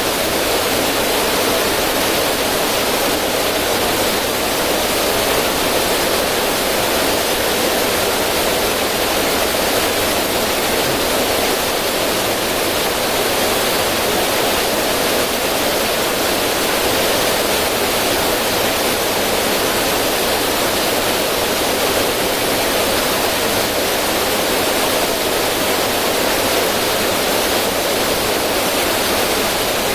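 River water rushing over rocks in a small cascade: a steady, even rush of flowing water.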